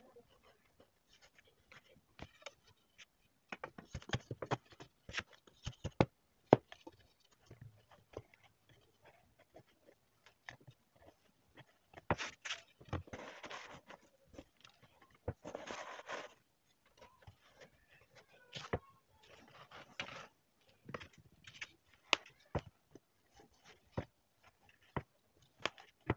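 Sawdust being pressed and packed by hand into a metal tin around a pipe: scattered knocks and taps on the can and pipe, with brushing, scraping rustles of sawdust. Two longer scrapes come about halfway through.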